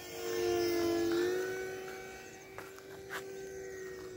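Electric RC plane's 2206 1500kv brushless motor and 10x4.5 propeller whining steadily in flight, swelling louder for about a second near the start as it passes close, with a small rise in pitch about a second in.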